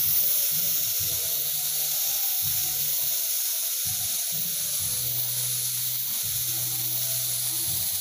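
Gravity-feed air spray gun hissing steadily as it sprays finish onto a wooden table.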